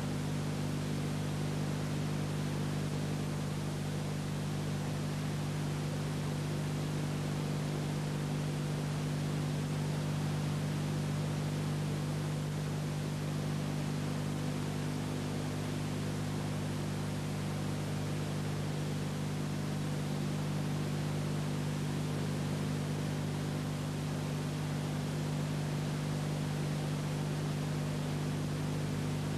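Steady electrical hum made of several low tones, under an even hiss, unchanging throughout: the noise floor of an old film transfer with no recorded sound of its own.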